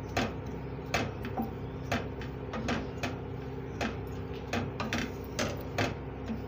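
Wooden spatula scraping and knocking against a steel kadai while stirring desiccated coconut as it dry-roasts: short irregular clicks, roughly two a second, over a steady low hum.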